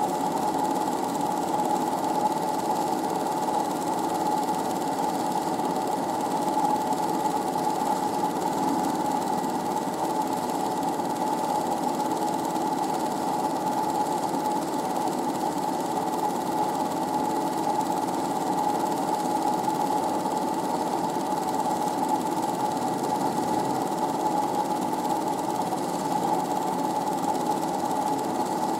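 8mm film projector running: a steady, fast mechanical clatter from the film-advance mechanism and motor.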